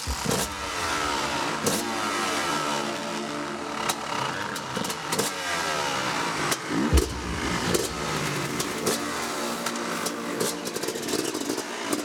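Honda CRF four-stroke motocross bike engine revving up and down repeatedly, with occasional sharp clicks between the revs.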